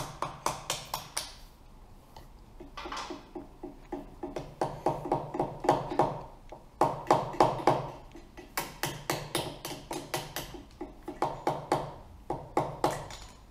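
A small rubber mallet tapping the camshaft bearing caps on a Honda CBX six-cylinder head, in runs of quick light taps, about five a second, to knock the caps loose where the cams press down on the valves.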